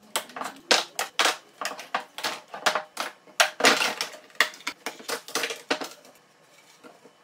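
One-handed quick-release bar clamps being released from a glued-up plywood panel and set down on a wooden workbench: a quick, irregular run of clicks and clacks that stops about six seconds in.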